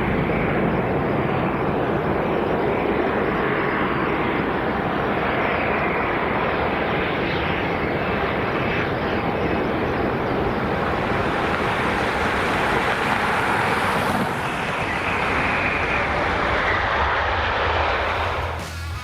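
Aircraft engine running steadily, a dense, even noise that stays at much the same level throughout.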